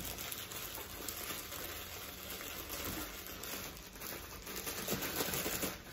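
Plastic bread bag crinkling and rustling as hands work at its tied top to open it.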